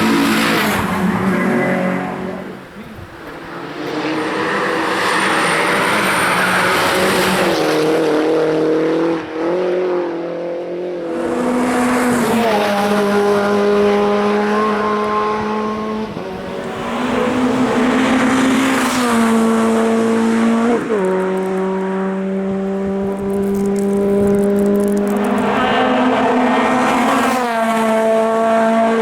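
Race car engines at high revs, accelerating hard up a hill-climb course. The engine note repeatedly rises and then steps as the cars shift gear.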